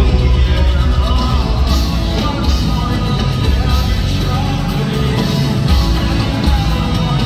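Rock band playing live: strummed acoustic guitar, saxophone and a male lead voice singing over bass and drums, heard loud and dense from the crowd on a phone microphone.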